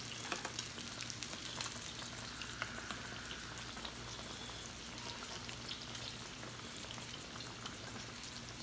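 Tabletop Korean barbecue grill with a boiling hot pot in its centre, giving a steady fine sizzle and crackle. A faint low hum runs underneath.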